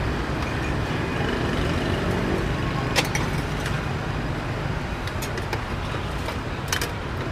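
Steady street traffic rumble, with a few sharp metallic clinks of utensils on steel pots and bowls, one about three seconds in and a couple near the end.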